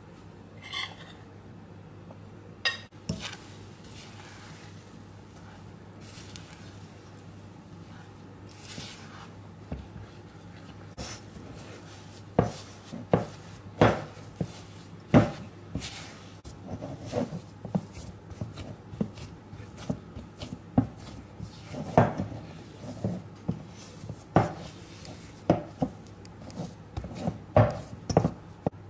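A spatula stirring flour into a wet mix for cookie dough, knocking and scraping against the sides of a bowl in quick irregular taps, which start in earnest about twelve seconds in after a few scattered clicks.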